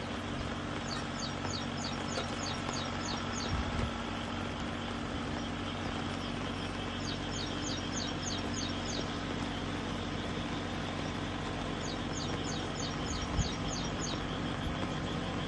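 Steady low drone of a tractor engine running, under a continuous noisy background. A bird calls over it in three runs of quick, high, falling chirps.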